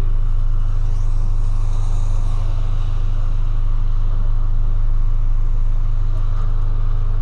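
A 2008 Volkswagen Polo sedan's 1.6 four-cylinder engine running steadily at low revs, heard from inside the cabin as a loud, even low hum.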